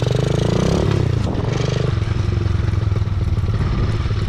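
Small mini motorbike engine running under way, its pitch dropping about a second in and then holding steady.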